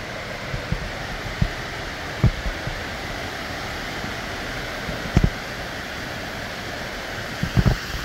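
Steady rush of a rain-fed waterfall in full flow, with a few irregular low thumps from footsteps on the bush track.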